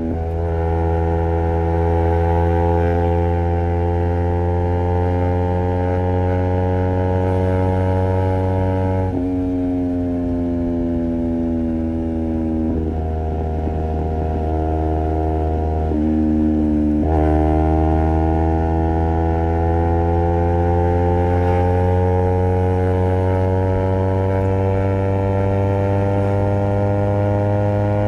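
Honda CBR250RR's parallel-twin engine through a Project 79 slip-on exhaust, heard from the rider's seat. Its note climbs slowly as the bike pulls, drops sharply about a third of the way in and sinks, then jumps and climbs steadily again a bit past halfway.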